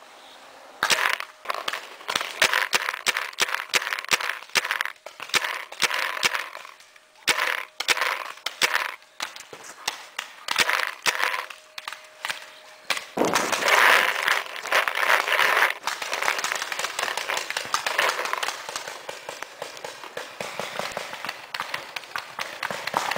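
Paintball markers firing: irregular sharp pops, often in quick runs of several shots. About halfway through, a rushing noise sets in under the shots.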